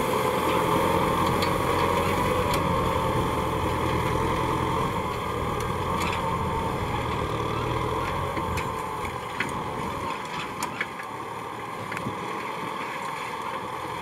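Kubota M6040SU tractor's diesel engine running steadily under load as it pulls a disc plough through wet soil, growing fainter as the tractor moves away. A few faint clicks in the second half.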